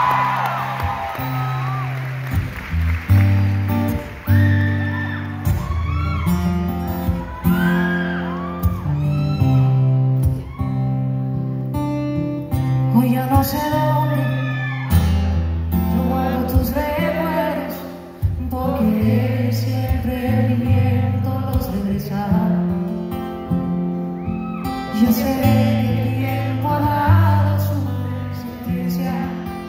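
A woman singing a slow song, accompanied only by her own acoustic guitar.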